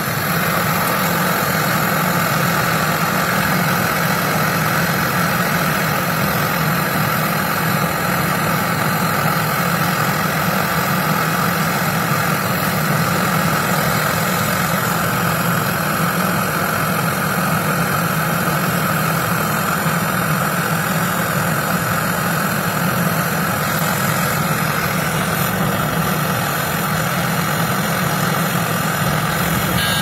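Handheld butane gas torch burning steadily with a continuous hissing rush, its flame heating a copper refrigerator filter drier for brazing work.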